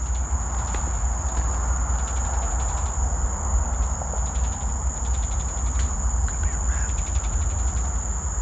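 Steady high-pitched insect chorus, like crickets, with faint rapid clicking, over a continuous low rumble.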